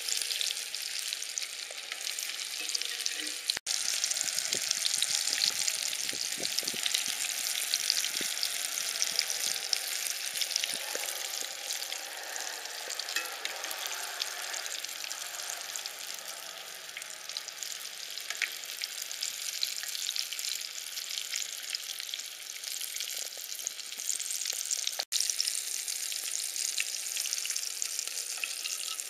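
Breaded grouse strips deep-frying in hot oil in a cast-iron skillet: a steady crackling sizzle, broken by two brief dropouts about 3.5 seconds and 25 seconds in.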